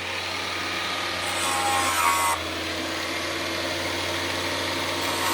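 Valve refacing machine running with a steady motor hum, its grinding stone rubbing across a valve face. The grinding grows louder and hissier from about one to two and a half seconds in.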